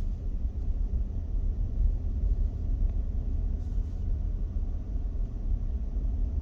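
A car driving along a paved road, a steady low rumble of engine and tyre noise.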